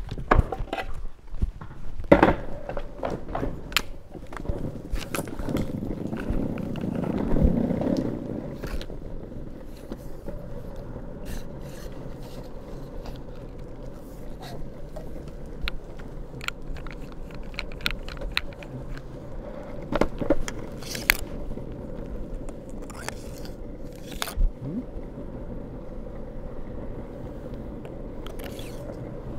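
Longboard wheels rolling over pavement and tarmac: a steady rumbling scrape, louder for a moment about seven seconds in, with scattered clicks and knocks.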